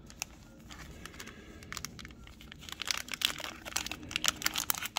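Crinkling of a glossy plastic trading-card hanger pack wrapper being handled, sparse at first and turning into dense crackling from a little past halfway.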